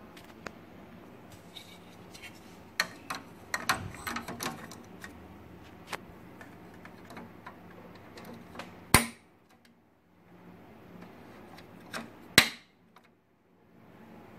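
Clicks and knocks of printer parts being handled: a run of clatter about three to four seconds in, then two sharp knocks about three and a half seconds apart near the end.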